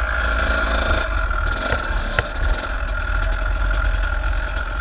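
Dirt bike engine running at a steady pitch while riding, with wind rumbling on the microphone.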